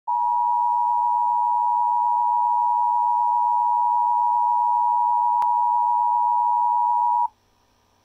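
Emergency Alert System attention signal for a tornado warning: one loud, steady high tone that cuts off suddenly about seven seconds in, just before the spoken warning.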